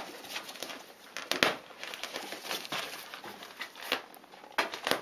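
Kittens scrambling on and clawing at the fabric walls of a photo light tent: irregular rustling and scratching with scattered sharp taps.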